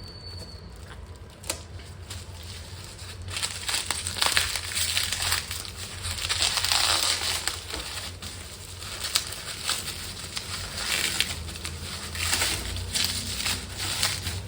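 Packaging being torn open and crumpled: polythene wrap and foam rustle, crinkle and crackle in irregular bursts as the exhaust parts are unwrapped. It starts about three seconds in, after a single sharp click.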